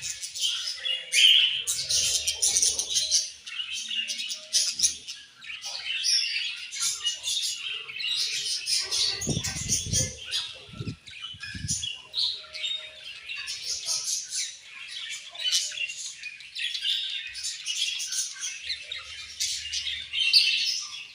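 A flock of budgerigars chattering and chirping continuously, many rapid overlapping chirps and warbles. There are a few low thuds about nine to twelve seconds in.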